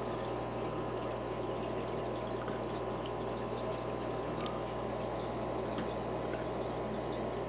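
Aquarium sponge filter bubbling steadily in the water, with a low steady hum beneath.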